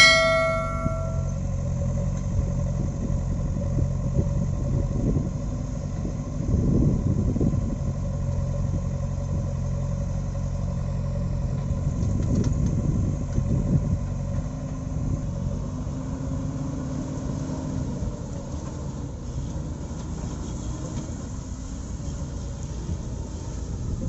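Diesel engines of a JCB backhoe loader and a lorry running steadily, with the engine revving up under load twice, a few seconds in and again about halfway. A short bell-like ding sounds at the very start.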